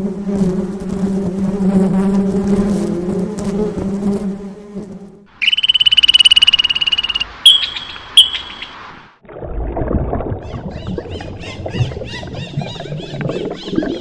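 Honeybees buzzing at a hive entrance, a steady low hum, for about five seconds. Then comes a loud, high, rapidly pulsing trill in two bouts, and after it a busier stretch of repeated short high chirps over low rustling.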